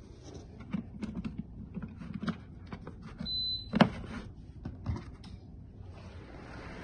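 Clicks and knocks of a window air conditioner being handled and its controls pressed, with one short high beep about three seconds in followed by a sharp click. Near the end the unit's fan starts, a steady rushing noise that grows louder.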